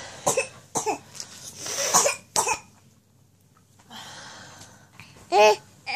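Short breathy vocal bursts in the first few seconds, then a brief high-pitched squeal from a 7½-month-old baby about five seconds in.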